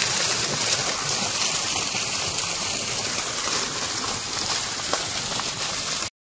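Fountain jets of water spraying and splashing down, a steady rushing hiss of falling water that cuts off suddenly near the end.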